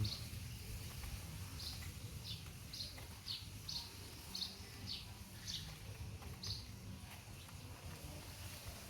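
A small bird chirping: a series of short, high, downward chirps about every half second, stopping about six and a half seconds in, over a faint low rumble.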